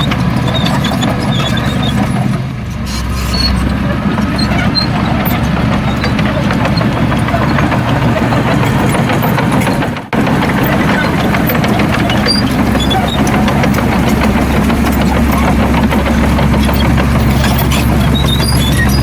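Heavy diesel engine of earthmoving machinery running steadily, with a brief sharp drop about ten seconds in.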